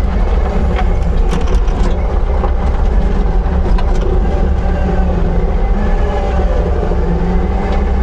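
Heavy earth-moving machine's engine running steadily under load, with a few sharp metallic clanks in the first couple of seconds.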